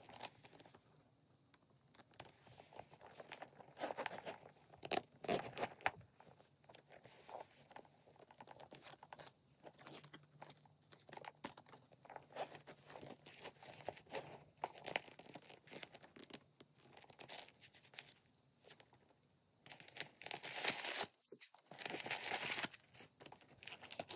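Close handling of a leather handbag: a string of soft rustles, crinkles and scrapes from the bag, its zipper and the paper inside, with a longer scratchy stretch near the end.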